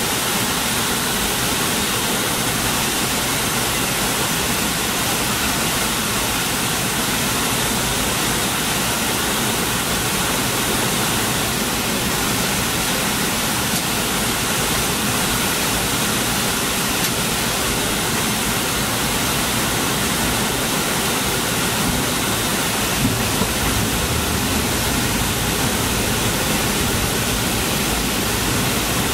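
Steady in-flight cabin noise inside a McDonnell Douglas MD-80: rushing airflow and the rear-mounted Pratt & Whitney JT8D turbofans, an even rushing sound with a few faint steady tones in it.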